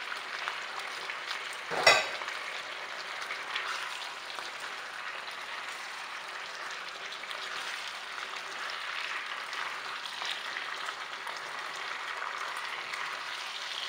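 Pork and vegetables sizzling in a hot non-stick wok as they are stir-fried over high heat with a wooden spatula, with small scraping ticks throughout. A single sharp knock comes about two seconds in.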